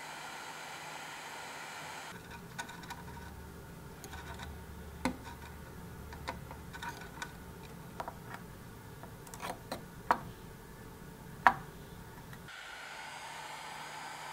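Scattered sharp clicks and snips of side cutters trimming component leads on a turret board, with small taps of metal tools against the board; the two loudest snips come near the end of the clicking. A steady hum fills the opening seconds and returns near the end.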